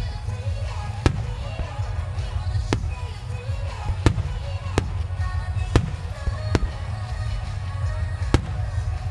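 Aerial firework shells bursting, about eight sharp bangs spaced irregularly roughly a second apart.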